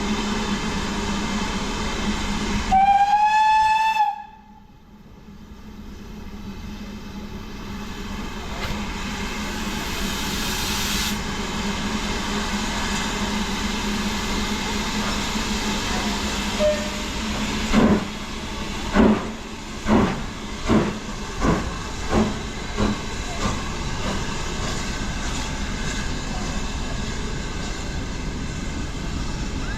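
Steam locomotive whistle: one loud blast about three seconds in, lasting about a second and a half, rising slightly in pitch and cut off suddenly. Around it is the steady running noise and hiss of a steam train, and from about eighteen seconds a run of about eight sharp exhaust beats that come quicker and quicker and fade away.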